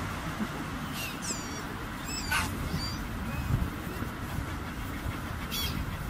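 Gulls giving a few short, high, falling calls, about one and two seconds in, over a steady low outdoor rumble.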